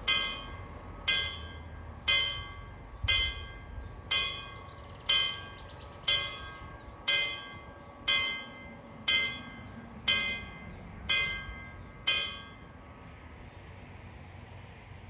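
Level-crossing warning bell striking about once a second, each stroke ringing out with bright overtones. It stops after about twelve strokes, a little past twelve seconds in.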